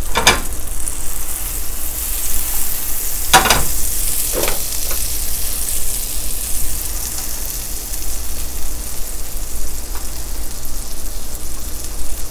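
Butter sizzling steadily in a hot skillet, with a few sharp knocks of kitchen handling.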